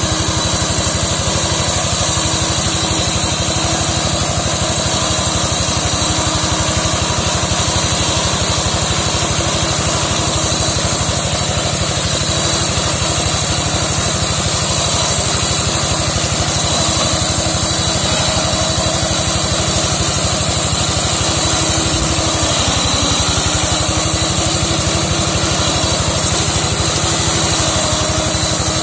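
Single-cylinder diesel engine of a two-wheel hand tractor running steadily while it drives a front-mounted slasher mower through undergrowth.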